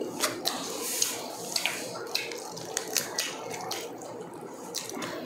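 Eating sounds from people eating grilled chicken and pork with their hands: chewing, lip smacks and meat being torn, heard as an irregular scatter of short wet clicks and smacks.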